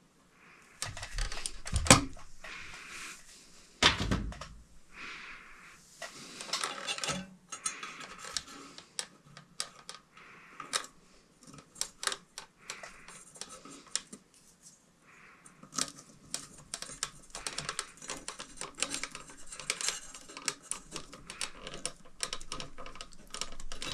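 Small metal parts being handled: quick clicks, clinks and rattles with rustling in between, and two heavier knocks about two and four seconds in.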